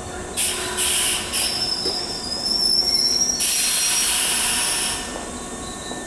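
Keisei 3300-series electric train braking to a stop at the platform: a few short hisses, then a high-pitched brake squeal for about two seconds as it halts, followed by a longer burst of hissing air.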